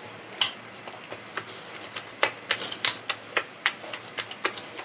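Gram-flour (besan) batter for pakoras being mixed by hand, heard as irregular sharp clicks and taps, several a second in places.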